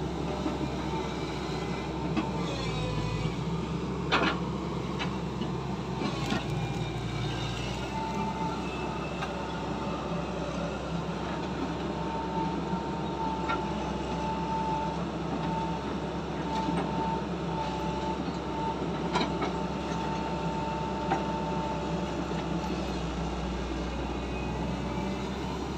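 XCMG XE135B tracked excavator's diesel engine running steadily under load as its grapple handles rubberwood logs, with a thin high whine that comes and goes. A few sharp knocks of logs striking each other, the loudest about four seconds in.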